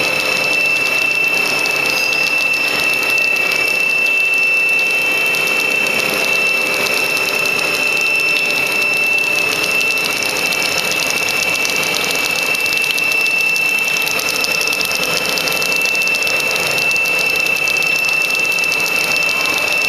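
Plastic sheet making machine running steadily: an even mechanical noise with a constant high-pitched whine over it.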